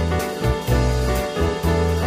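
Background music: an instrumental with a moving bass line and a steady beat.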